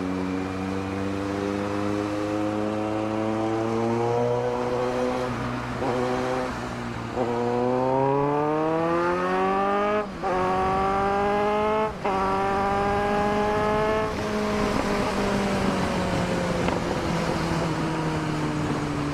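Kawasaki Z900's inline-four engine under acceleration, heard from the rider's seat with wind rush: the revs climb, drop sharply at quick upshifts about ten and twelve seconds in, climb again, then fall away slowly as the throttle eases off.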